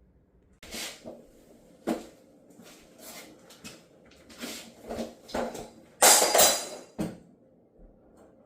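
Knocks, clicks and short scrapes of a refrigerator's freezer door and hinge being handled, with a louder scraping rush about six seconds in.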